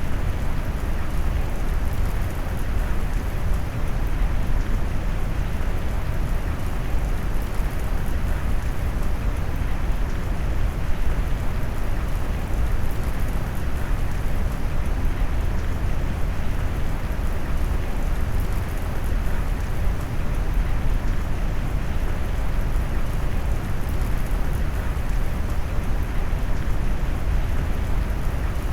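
Steady rain mixed with deep brown noise: an even, low, rumbling hiss with the weight in the bass and no distinct events.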